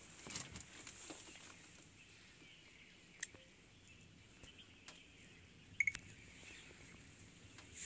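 Quiet forest ambience: a faint steady high-pitched insect buzz, a short double bird chirp about six seconds in, and a few faint clicks.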